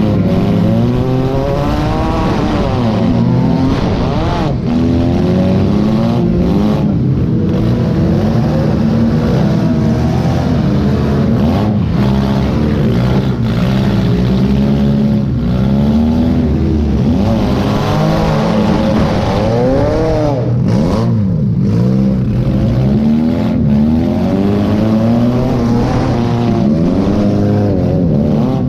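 Demolition derby car's engine heard from inside its gutted cab, revving up and down over and over as it is driven around the arena.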